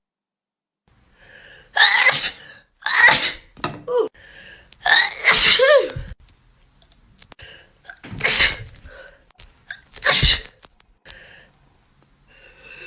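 A person sneezing repeatedly, about five loud sneezes spaced one to three seconds apart, set off by a nasal swab during a Covid-19 test.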